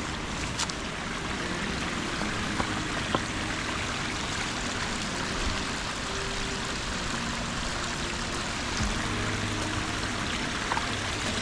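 Small spring-fed woodland stream trickling and burbling steadily over rocks.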